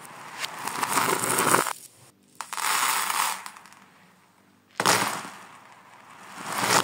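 Handfuls of small hard toys (glass gems, beads, bean-shaped pieces and wooden pegs) clattering and scattering across a hard floor, in several bursts. The footage runs backwards, so some of the rattles swell up and stop abruptly: once just under two seconds in and again at the end.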